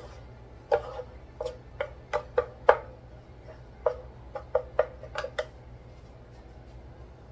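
Two wooden spatulas knocking and scraping against a nonstick electric skillet while turning over fried rice: about a dozen irregular knocks that stop about five and a half seconds in.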